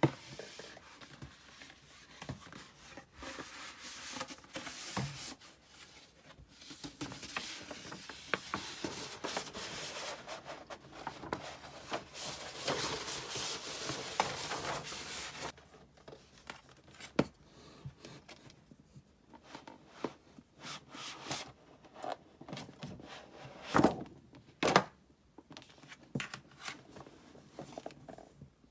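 CD album packaging being opened by hand: a long stretch of tearing and rustling, then scattered taps and light knocks as the contents are handled, with two sharper knocks near the end.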